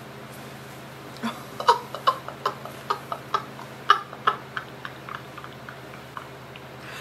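A quick run of short kissing smacks of the lips against a hand, about four or five a second, starting a little over a second in and fading out.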